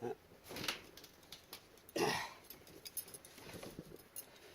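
Metal and plastic scrap parts being handled and dropped: scattered light clinks and knocks, with two louder clattering knocks about half a second and two seconds in.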